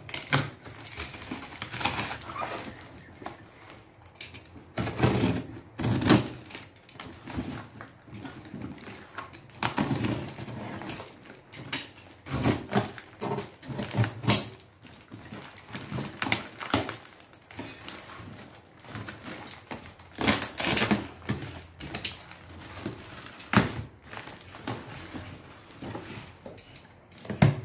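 A box cutter slicing through plastic packing tape and cardboard, the tape tearing loose and the box flaps being pulled open: irregular short scraping and ripping sounds with pauses between them.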